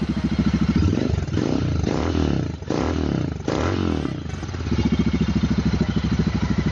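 Royal Enfield Interceptor 650's parallel-twin engine through a Gursewak slip-on exhaust with its dB killer fitted, revved in about four quick throttle blips, then settling to a steady idle about five seconds in.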